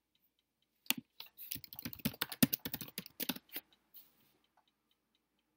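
Typing on a computer keyboard: a quick run of keystrokes starting about a second in and lasting under three seconds.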